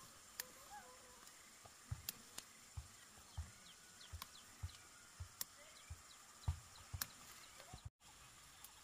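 Quiet outdoor ambience with soft low thumps at irregular intervals, roughly one or two a second, a few sharp clicks, and faint high chirps over a steady hiss.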